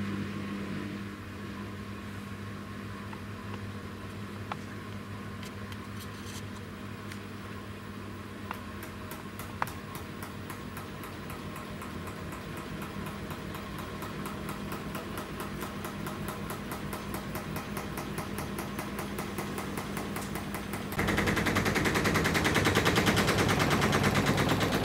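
Samsung front-loading washing machine with a digital inverter motor on its spin cycle: a steady motor hum with a quick rattle of knocks that speeds up as the drum gains speed, then about 21 seconds in it suddenly gets much louder. The machine is shaking and knocking against the walls and floor of its tight cabinet space, which the owner puts down to it not being level.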